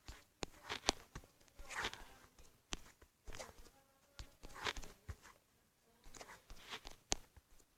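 Irregular light clicks and rustling scuffs, a dozen or so scattered through, the sharpest about a second in and near the end.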